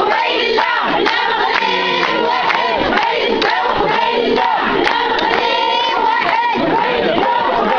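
Crowd of demonstrators chanting and shouting together, many voices overlapping without a pause.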